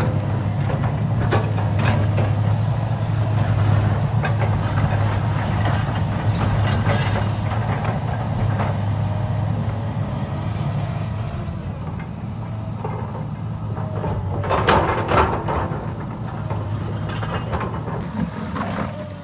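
Heavy construction machinery engine running steadily with a low hum, with scattered metallic knocks and a louder burst of clanking about fifteen seconds in.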